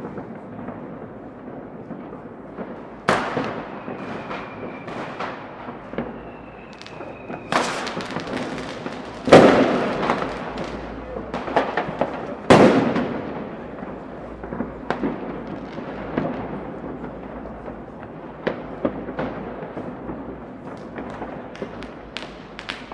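New Year's Eve fireworks and firecrackers going off all around: steady crackling and popping broken by four big bangs, the loudest about halfway through. A thin whistle sounds twice in the first third.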